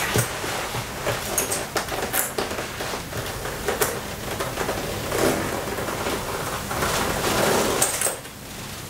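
Leather jacket and silky dress fabric rustling and creaking as they are handled and rubbed, with many small clicks and scrapes.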